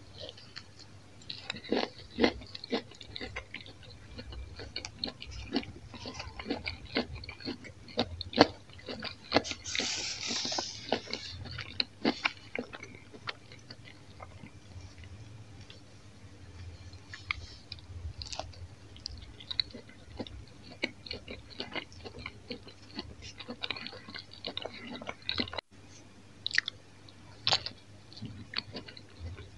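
Close-miked chewing of a sausage-and-cheese pizza slice: a steady run of short crisp clicks and crackles from the mouth, busiest in the first dozen seconds.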